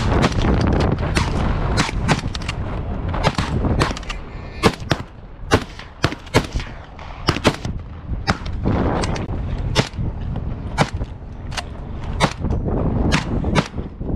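A gun fired again and again in rapid succession, about twenty sharp shots, some only a fraction of a second apart. Underneath is the low rumble and wind noise of a moving vehicle.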